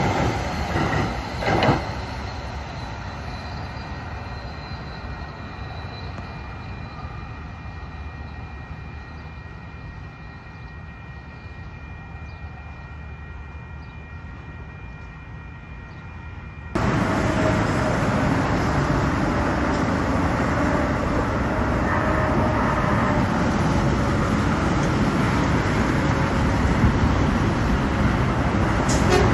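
A Kinkisharyo P3010 light rail train pulls away from the platform, its sound fading steadily into the distance. About two-thirds of the way through, the sound cuts abruptly to louder, steady freeway traffic noise as another light rail train approaches.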